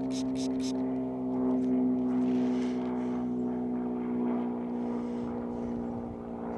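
Handheld metal-detecting pinpointer beeping quickly, about four beeps a second, as a lead find is held against its tip; the beeps stop just under a second in. Under it a steady engine drone runs throughout.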